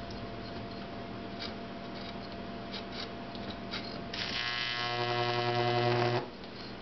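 Microwave oven transformer humming at mains frequency, with a few faint crackles. About four seconds in, a high-voltage arc drawn between nail electrodes sets up a much louder, harsh electrical buzz for about two seconds, then cuts off suddenly as the arc breaks.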